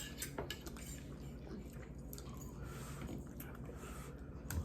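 Forks clinking and scraping on plates, with some chewing, during a meal; a louder knock near the end.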